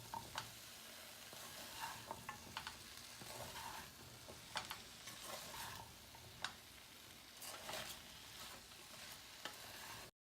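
Cauliflower masala frying in a pan: a faint steady sizzle, with a spoon stirring and scraping against the pan now and then. The sound cuts off suddenly near the end.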